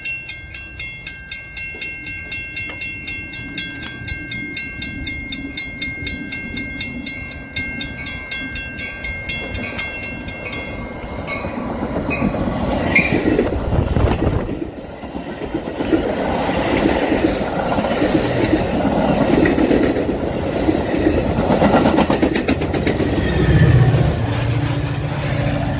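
Metra push-pull express train running through the station at speed without stopping: a rumble that grows loud about halfway in, with wheel clickety-clack as the cab car and bilevel coaches pass. Near the end, the diesel locomotive pushing at the rear passes with a steady engine drone. Before the train reaches the station, a high ringing tone pulses about twice a second.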